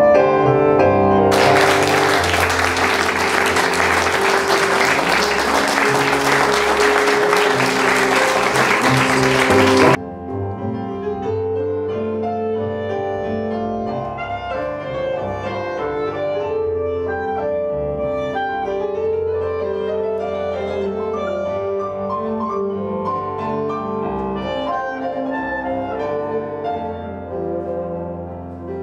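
Instrumental music with piano. Over it, for the first ten seconds, an audience is applauding, and the applause cuts off abruptly.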